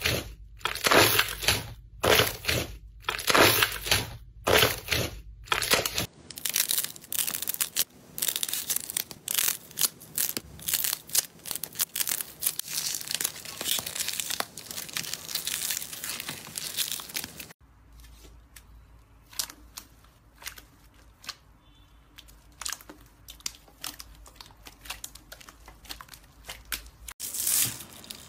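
Hands squeezing and pulling slime, making crackling and popping sounds. At first there are loud crackling pops under twice a second. About six seconds in they give way to a dense steady crackle, and from about two-thirds through there are fainter scattered clicks. Near the end a fresh crackle comes as hands press foam beads into clear green slime.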